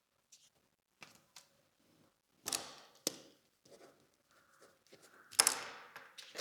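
Scattered sharp clicks and taps of a small screwdriver and tiny parts against a camera body and work surface while a screw is removed, with three louder knocks, about two and a half seconds in, at three seconds, and near the end.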